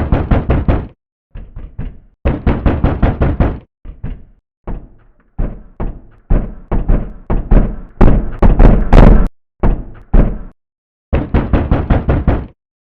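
Fists pounding rapidly on a locked bathroom door, in about ten frantic bursts of quick knocks separated by short pauses. The banging is loudest about two-thirds of the way through.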